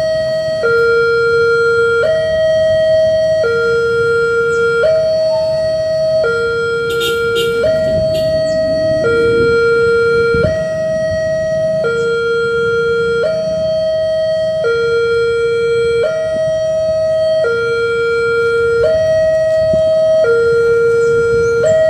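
Railway level-crossing warning alarm: an electronic signal alternating steadily between a low and a high tone, each held for under a second. It sounds while the crossing barrier lowers, warning that a train is approaching.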